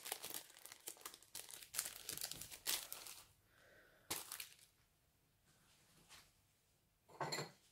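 Thin clear plastic packaging crinkling as a sheet of adhesive faceted accents is handled and slid out of its bag. Dense crinkling for the first three seconds, then a sharp rustle about four seconds in and another short one near the end.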